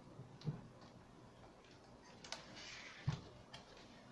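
Faint clicks and knocks of audio cables and a small sound card being handled on a desk, with a brief rustle near the middle and a low knock about three seconds in.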